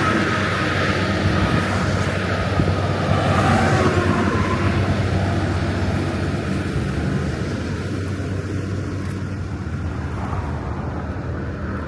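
Road vehicle noise: a steady low engine hum under constant road noise, with a tone that falls in pitch during the first second.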